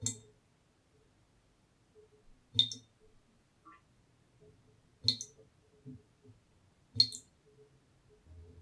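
Water dripping from a tap: four separate, sharp drops, about one every two to two and a half seconds, each a short bright plink.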